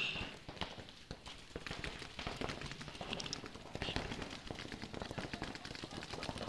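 A buzzer cuts off right at the start; then comes rapid, irregular popping of paintball markers firing, mixed with a player's running steps and gear rattle, all fairly quiet.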